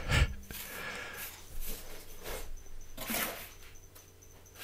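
Small trowel scraping and dabbing wet concrete mix into a plastic DVD case, a few short scratchy scrapes and pats.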